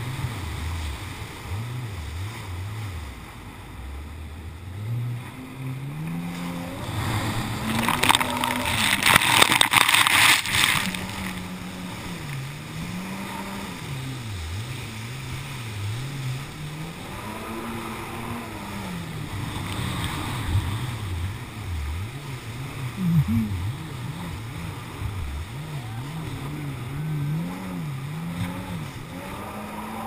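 Kawasaki jet ski engine running hard, its pitch rising and falling again and again as the throttle is worked while manoeuvring in big surf. A loud rushing hiss comes about eight to ten seconds in.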